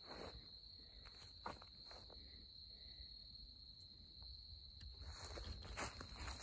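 A steady high insect trill, with footsteps crunching on dry leaf litter and wood chips: a few near the start, then a steady run from about five seconds in.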